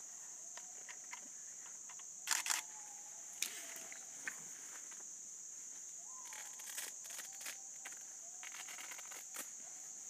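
Steady high-pitched drone of forest insects, with a few short sharp clicks and rustles, the loudest about two and a half seconds in.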